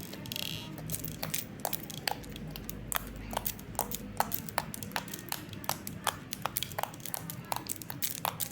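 Slime being squished and poked, making a rapid series of small sharp clicks and pops, several a second.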